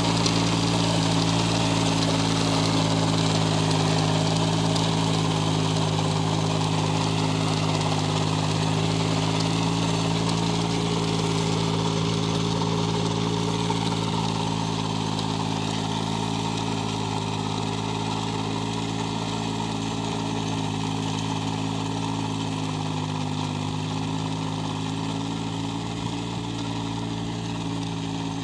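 Sonalika mini tractor's diesel engine running steadily under load, driving a rear rotavator that churns through the soil. The sound fades gradually as the tractor moves away.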